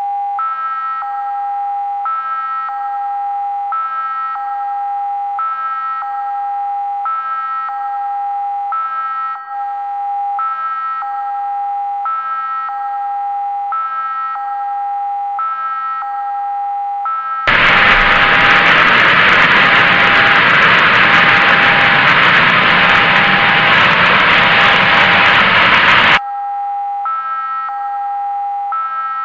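Synthesizer warning-tone loop, a pattern of steady electronic tones pulsing a little faster than once a second. About seventeen seconds in, a loud burst of static hiss drowns it for nearly nine seconds, then cuts off suddenly and the tone loop returns.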